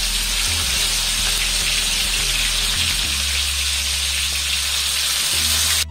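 Marinated chicken pieces frying in hot oil and butter in a frying pan: a steady sizzle.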